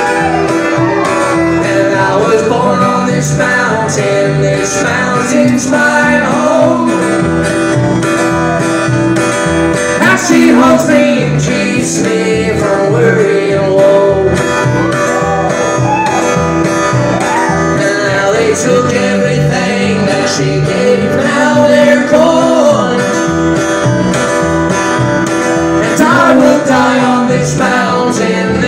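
Live acoustic country band playing: strummed acoustic guitar and upright bass, with a bending melody line carried over them.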